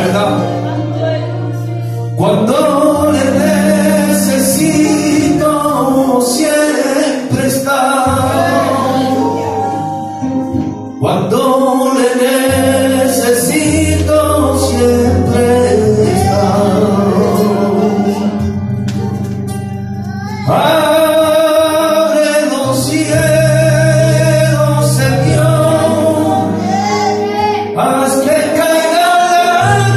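A man singing a slow worship song through a microphone and PA, over sustained low accompaniment chords. The singing comes in long phrases with brief pauses between them.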